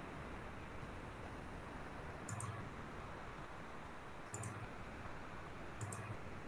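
A computer mouse clicked three times, about two seconds apart, each a quick sharp double click, over a faint steady hiss.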